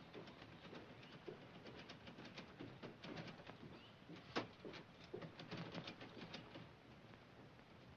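Manual typewriter keys clicking faintly in quick, uneven runs, with one sharper keystroke about four and a half seconds in.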